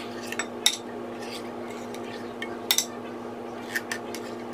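Metal spoon scraping and clinking against the inside of a can while thick coconut cream is scooped out, with a few sharp clicks, over a steady low hum.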